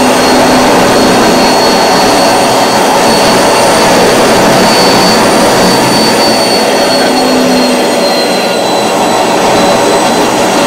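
Homemade gas-fuelled jet engine running hot, a loud steady rush of combustion and airflow with a thin high turbine whine that slowly sinks in pitch. It runs on heavy gas consumption with the rotor blades glowing red.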